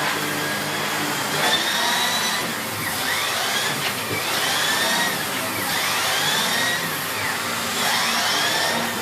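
Miele S8 bagged canister vacuum cleaner running with a steady rush of air. A whistle in its sound swoops up and down roughly once a second as the floor head is worked back and forth.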